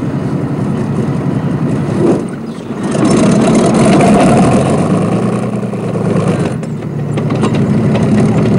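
T-34-85 tank's V12 diesel engine running. It revs up louder about three seconds in and eases back after about six and a half seconds as the tank drives off.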